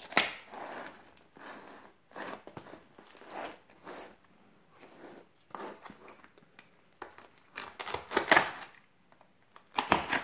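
A utility knife slicing through the tape and plastic wrapping of a mail package, in irregular strokes with crinkling of the wrapping between them. The loudest cuts come just after the start and again around eight seconds in.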